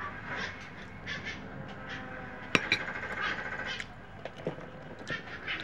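Eating a mango float: a spoon clicking and scraping against the dish, mixed with soft mouth sounds, with one sharp click about two and a half seconds in.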